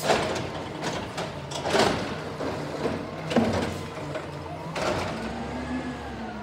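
Automated side-loader garbage truck's hydraulic arm dumping a wheeled cart into the hopper: four loud bangs about a second and a half apart as the cart is shaken out and set back down, over the steady running of the truck's natural-gas engine.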